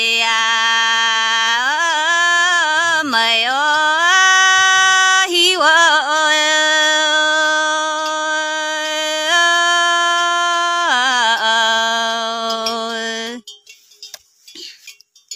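A woman singing a Red Dao (Iu Mien) folk song solo, in long held notes with wavering ornaments and slides between pitches. The singing stops suddenly about 13 seconds in.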